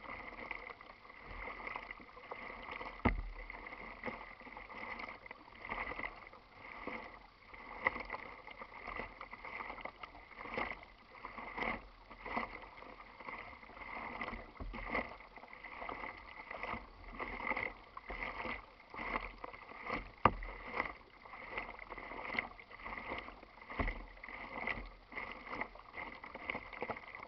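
Kayak paddling: water splashing and trickling off the paddle blades and lapping at the plastic hull in a steady stroke rhythm, with a few sharp knocks.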